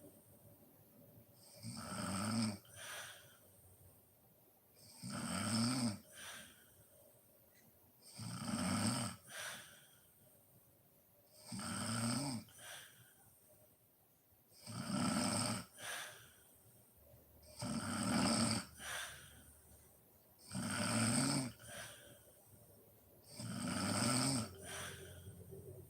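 A sleeping woman snoring in a slow, regular rhythm, about one snore every three seconds, eight in all. Each snore lasts about a second and is followed by a brief, quieter breath.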